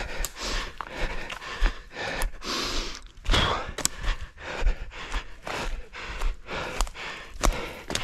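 A runner's hard breathing with running footsteps on forest ground, about two steps a second.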